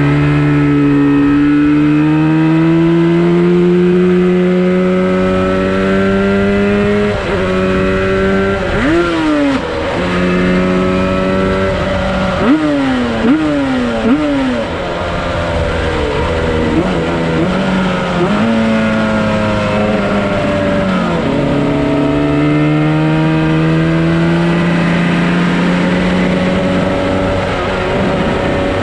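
Yamaha RD350 two-stroke parallel-twin engine in a Cagiva Mito motorcycle at racing speed, its pitch climbing steadily under throttle and dropping at each gear change. About halfway through it backs off, with three quick throttle blips, as on downshifts into a corner, then pulls up through the gears again.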